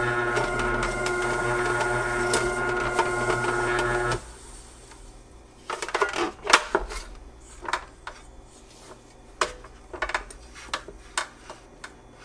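Ultra wet grinder's motor running steadily under load, turning the atta kneader paddle through wheat dough, with a steady whine; it stops abruptly about four seconds in. After that, scattered light clicks and knocks.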